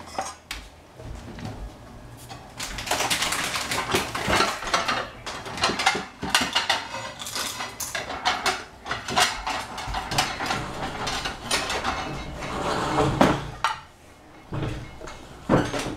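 Kitchenware clattering and scraping: metal utensils, a stainless steel saucepan and a ceramic plate knocking and sliding against each other. A busy run of clinks and scrapes fills most of the stretch, eases off, and a few sharp knocks come near the end.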